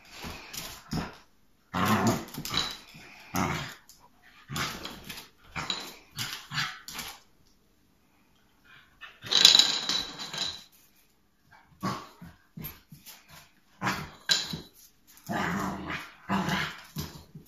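Spaniel growling, barking and whining in repeated short bursts, frustrated at a beef bone it cannot pick up; a pause of about a second and a half comes just before the loudest burst near the middle.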